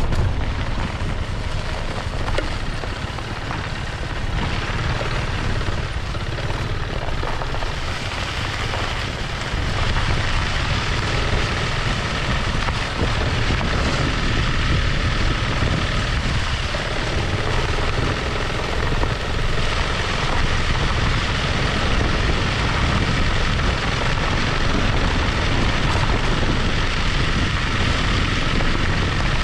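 Piaggio MP3 500 maxi scooter riding on a dirt road, heard from low at the front wheels: the single-cylinder engine's drone mixed with tyre and wind rumble, growing louder about ten seconds in.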